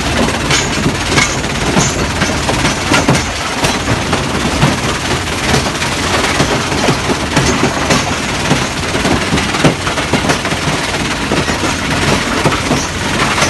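Giporec Giga 150 mobile crusher running under load, with a steady diesel rumble and a continuous rattle and clatter of concrete railway sleepers and ballast stones banging through it, many sharp knocks throughout.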